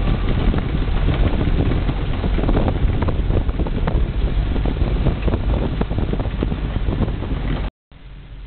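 Vehicle driving over rough ground: a loud, steady rumble with many small rattles and jolts, and wind buffeting the microphone. It cuts off suddenly near the end, giving way to a quieter, steady hum.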